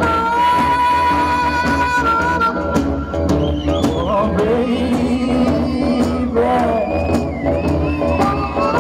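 Live band playing an instrumental break: a lead instrument holds two long high notes for about two seconds, then plays a bending, wavering melody over the band's steady bass.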